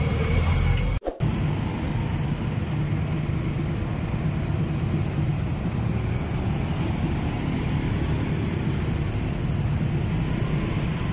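A motorbike running as it rides through city traffic, heard from the rider's seat as a steady low rumble. It starts after a sudden cut about a second in.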